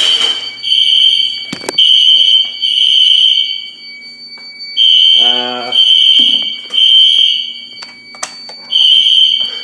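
Fire alarm system horns, set off from a pull station, sound high-pitched blasts in groups of about three with a short pause between groups. Several horns are out of sync, so their blasts overlap. A faint steady high tone runs underneath, and there are a few sharp clicks.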